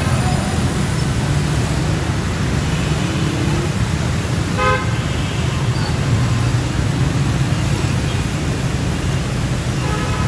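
Steady road traffic rumble, with a vehicle horn giving one short toot about halfway through.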